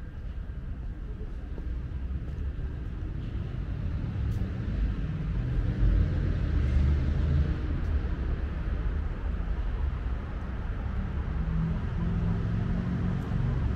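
Motor vehicle traffic passing on a city street: a low engine and tyre rumble that grows to its loudest about six to seven seconds in, then eases a little and carries on.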